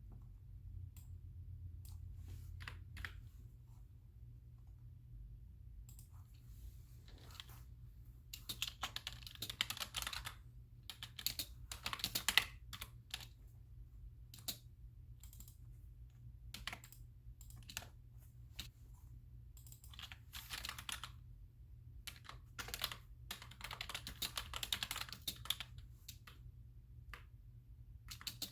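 Typing on a computer keyboard in bursts of rapid keystrokes, with scattered single clicks in the pauses between them.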